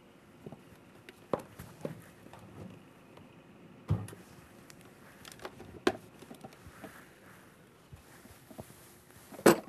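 Scattered light knocks and clatter of a food processor being handled, picked up and set down on a kitchen counter, with a dull thump about four seconds in and a sharper knock near the end.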